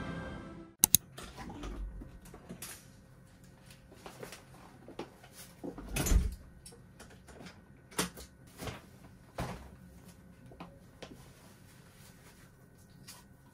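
Household handling sounds in a small entryway: two sharp clicks about a second in, then a low thump about six seconds in as a paper shopping bag is set down on the floor. Scattered softer clicks, knocks and rustles follow, the kind a cupboard or door makes.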